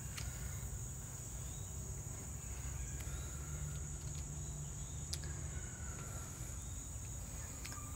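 Steady high-pitched insect chorus over a low background rumble, with a few faint clicks.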